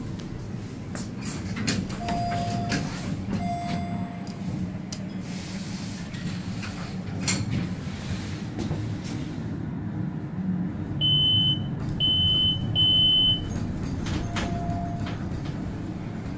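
Elevator car travelling down: a steady low rumble, with scattered clicks and short mid-pitched tones in the first few seconds and again near the end. About eleven seconds in come three loud high-pitched electronic beeps in quick succession.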